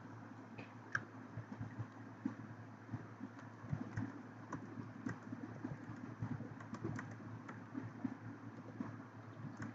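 Computer keyboard typing: quick, irregular keystroke clicks as a message is typed, over a steady low hum.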